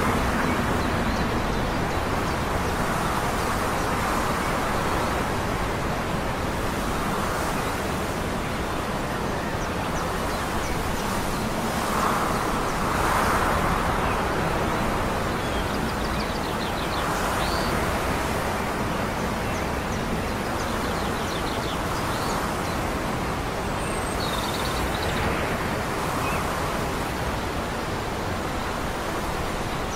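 A steady distant outdoor rumble that swells and fades slowly, with small birds chirping now and then.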